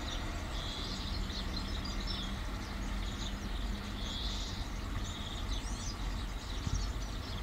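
Swallows twittering in repeated short chirping phrases over a low, steady rumble.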